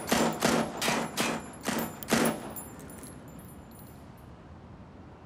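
Handgun gunfire: six rapid pistol shots over the first two seconds or so, then the shooting stops.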